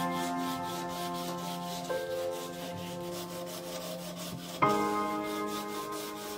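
Soft background music holding sustained chords, with a new chord about two seconds in and another near the end. Under it a cloth rubs rapidly back and forth along a silver chain as it is polished.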